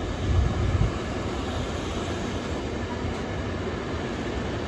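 Freight train wagons rolling past on the rails, a steady rumble and rattle of wheels and wagons, briefly louder and heavier in the first second.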